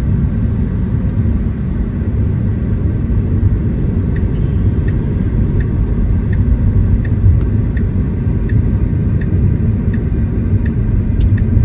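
Steady low tyre and road rumble inside a moving Tesla electric car's cabin. From about five seconds in there is a faint, regular tick a little more than once a second.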